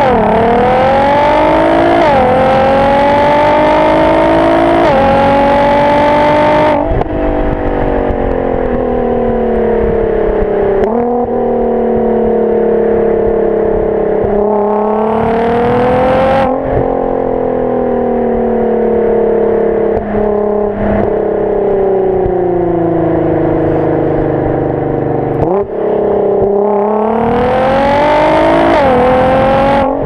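Nissan GT-R R35's twin-turbo V6 heard from inside the cabin, driven hard. The engine pitch climbs and drops sharply at quick upshifts about 2 and 5 seconds in, then falls away when the throttle is lifted. It rises again in two more hard pulls, the last with another upshift near the end.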